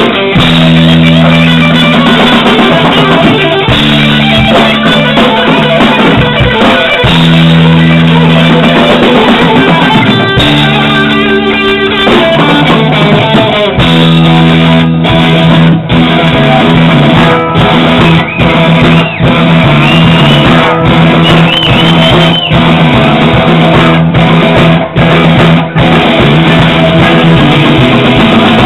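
Live rock band playing an instrumental passage: two electric guitars over a drum kit.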